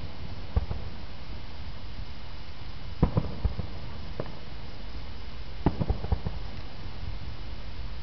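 Fireworks going off at a distance: short clusters of sharp bangs, a single one about half a second in, a quick group of three or four about three seconds in, another near four seconds, and a further group around six seconds, over a steady low rumble.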